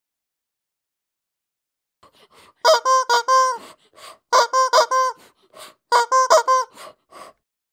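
Rubber chicken squeeze toy squawking: starting about two and a half seconds in, three quick runs of short honking squeaks, about a second and a half apart.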